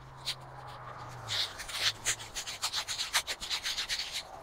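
Tape being pulled off its roll and wound around a paint roller cover, a quick run of crackly rasping strokes starting about a second in.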